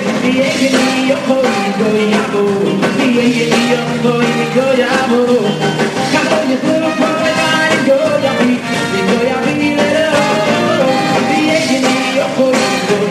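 Upbeat Jewish concert music from a live band with a steady beat and singing.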